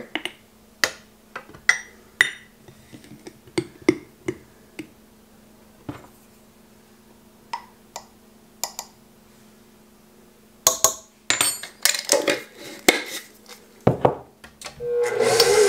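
Metal measuring cup and measuring spoon clinking and tapping against glass jars and a stainless steel stand-mixer bowl while flour and baking powder are scooped and tipped in: scattered light clinks, busier in the last few seconds, over a faint steady hum. Just before the end a stand mixer's motor starts up with a loud, steady sound.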